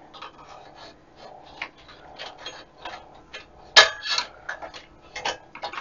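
Screwdriver prying at the clips of a sheet-metal shield cover inside a Keithley 192 multimeter: irregular small metallic clicks and scrapes, with one sharp click, the loudest, nearly four seconds in.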